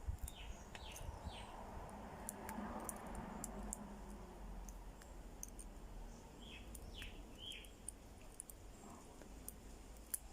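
Two groups of three short falling chirps from a bird, one near the start and one about two-thirds through, over faint light clicking and rustling from handling the separated wires of a UTP cable.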